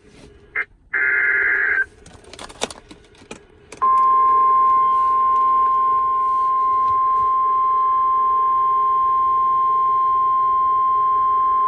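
NOAA Weather Radio broadcast with a short buzzy data burst about a second in and a few crackles, then the 1050 Hz warning alarm tone held steady for about nine seconds, signalling that a warning message follows.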